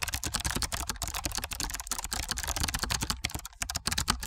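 Rapid computer-keyboard typing, many quick key clicks a second without a pause: a typing sound effect laid under on-screen text being typed out.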